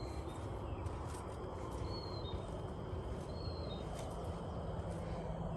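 Steady low background rumble with a few short, high chirps, bird-like, about two and three and a half seconds in.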